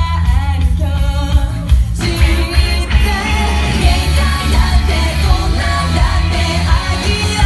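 Live pop-rock band playing loudly with a singer over a heavy bass; about two seconds in the full band comes in and the sound becomes much denser.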